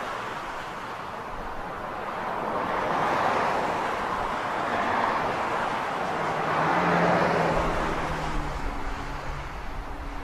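Outdoor ambience of surf and road traffic: a steady rushing noise that swells and fades every few seconds, with the low hum of a passing vehicle's engine joining about seven seconds in.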